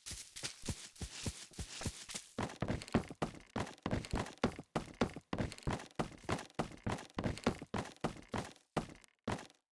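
A rapid series of thuds and knocks, several a second, that thins out and stops shortly before the end.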